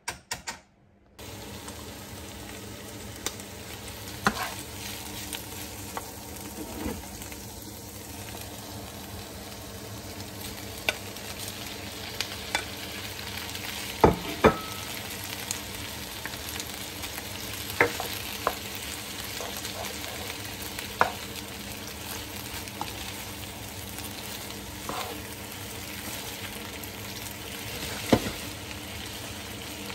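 Mushrooms and cut boiled dumplings sizzling in a frying pan, starting about a second in. A spatula scrapes and knocks against the pan now and then as the food is stirred.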